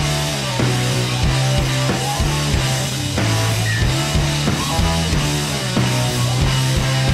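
Background rock music with a steady drum beat over sustained bass notes.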